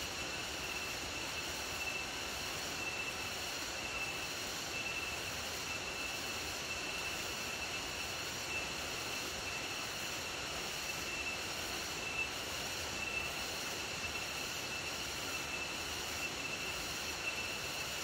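Forest insects droning: a steady high-pitched whine with a faint, slow pulsing.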